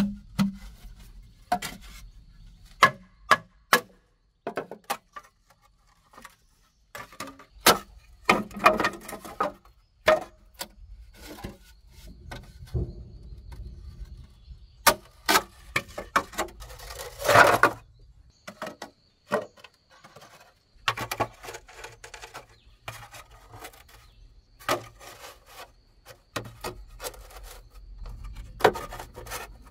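Green bamboo tubes being split lengthwise with a machete: a series of sharp knocks as the blade is struck into the end of each tube, with a couple of longer cracking stretches as a tube splits open.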